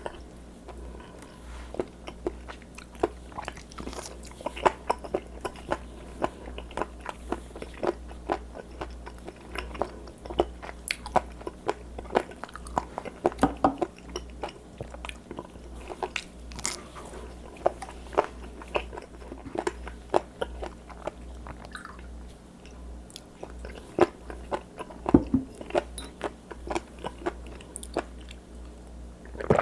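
Close-miked chewing and biting of raw seafood, a dense, irregular run of small crunchy clicks and smacks. A steady low hum runs underneath.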